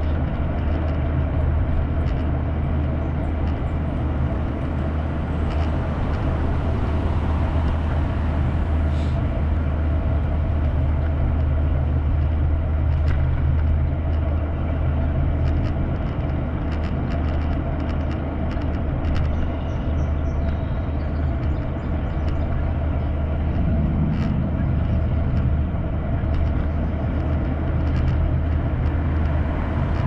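Steady low rumble and hum of riding along a paved path, heard from a camera on the moving rider, with scattered small clicks from bumps in the pavement.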